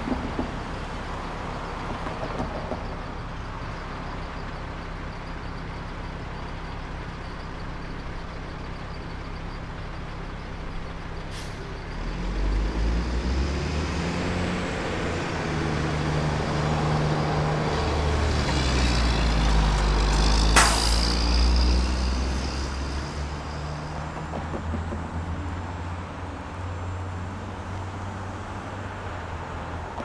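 Calm suburban street traffic: a steady low engine hum, then a motor vehicle approaching from about twelve seconds in. It is loudest around twenty seconds with a brief sharp hiss, then fades away.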